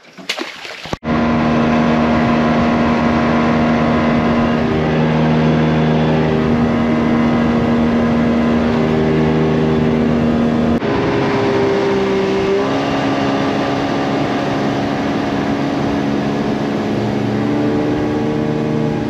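Boat motor running steadily under way, starting abruptly about a second in, its pitch shifting a little a couple of times.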